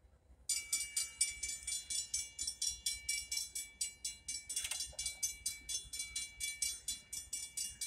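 Railroad grade-crossing bell starting up about half a second in and ringing in rapid, even strokes, warning of an approaching train.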